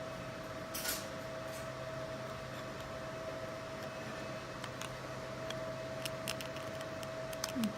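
Fiber laser marking machine at work: a steady whine over a low hum, with faint scattered ticks, a short hiss about a second in and a light knock near the end.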